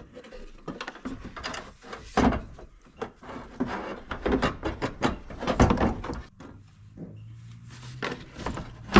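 Irregular rubbing, knocking and clattering of plastic parts as a washer fluid hose is fished down past the new plastic washer reservoir. A low steady hum comes in after about six seconds.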